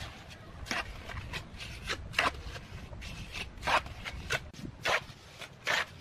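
Steel hand trowel scraping and spreading cement mortar over brickwork: a run of short, gritty scrapes, roughly one to two a second, at an uneven pace.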